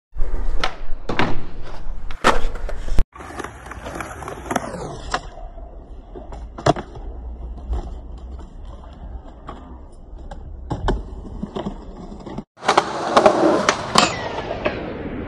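Skateboard wheels rolling on concrete, broken by the sharp clacks of tail pops and board landings, several over the stretch. Near the end a louder grinding scrape of a board sliding along a metal rail, ending in a clack.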